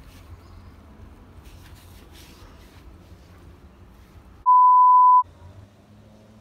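A single loud, steady, pure-tone censor bleep lasting under a second, about four and a half seconds in; the background drops out entirely beneath it, as when a word is bleeped out in editing. Before it, only faint outdoor background.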